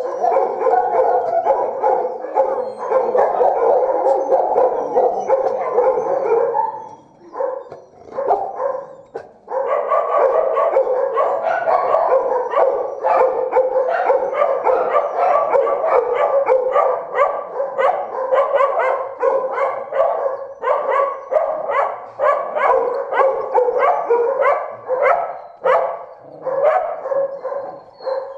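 A chorus of many caged shelter dogs barking at once, continuous and overlapping. It thins briefly about seven seconds in, then picks up again.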